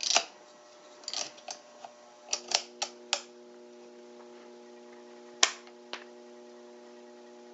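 A battery charger buzzing steadily with mains hum, starting about two seconds in, as it charges a deeply discharged booster-box battery. Several sharp clicks and knocks come before and with the start of the buzz, and two more come near the end.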